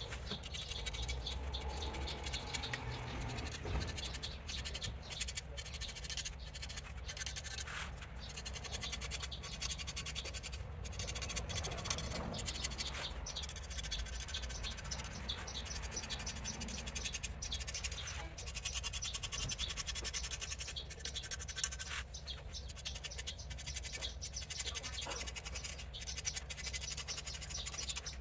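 Hand tool scratching repeatedly along a javelin shaft in many short strokes, scoring lines into its surface for a custom design.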